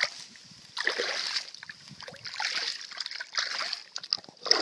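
Water splashing and trickling out of a drain into a ditch, in irregular surges, with dry grass stems rustling close by as a hand pushes through them.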